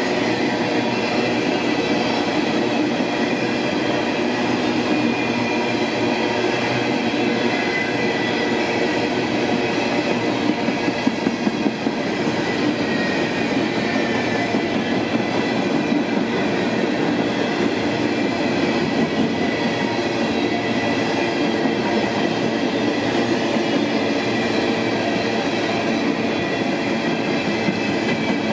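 Freight train of coal hopper cars rolling past: a steady rumble and rattle of steel wheels on rail, with a faint high wheel squeal. A quick run of sharper clacks comes about eleven seconds in.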